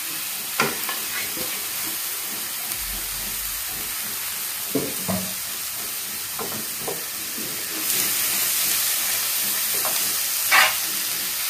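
Clam meat and chilli masala sizzling in coconut oil in a frying pan, with a few knocks and scrapes of a wooden spatula. The sizzle grows louder about eight seconds in, and the loudest knock comes near the end as stirring starts.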